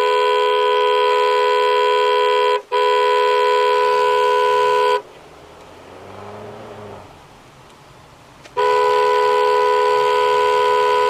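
Car horn held in long blasts, two notes sounding together. The first blast breaks briefly a few seconds in and carries on, then stops. After a pause of about three and a half seconds, with only a low engine and road hum, a second long blast comes near the end.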